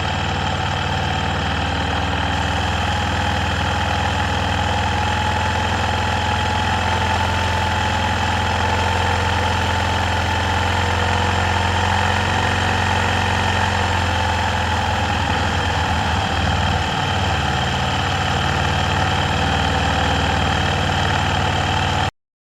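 Arctic Cat 650 H1 ATV's single-cylinder four-stroke engine running at a steady medium rpm. The sound stops abruptly near the end.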